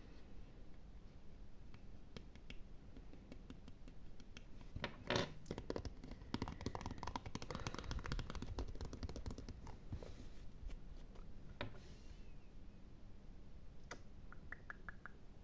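Close-miked ASMR scratching and gripping: fingers and nails handling an object, a dense run of small scratches and clicks in the middle with one louder knock about five seconds in, then a few scattered ticks.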